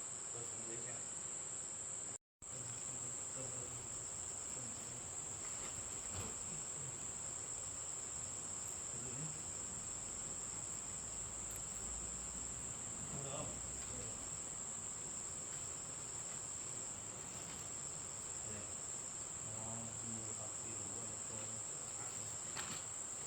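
Insects trilling with one steady, continuous high-pitched tone. The sound cuts out for a moment about two seconds in.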